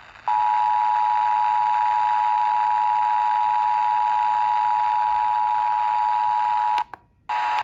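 Emergency Alert System attention signal: a steady two-tone alert (853 and 960 Hz sounding together) over a hiss, lasting about six and a half seconds, breaking off near the end and briefly coming back. It heralds a National Weather Service severe thunderstorm warning.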